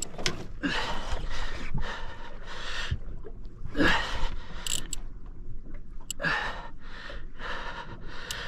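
A man breathing hard in loud, hissy gasps and exhales, about one a second, out of breath from fighting a large fish on rod and reel. A couple of short sharp clicks come just past halfway.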